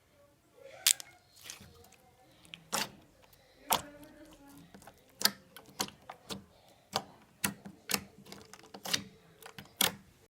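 Slime being squeezed and poked, giving irregular sharp wet clicks and pops, about one or two a second.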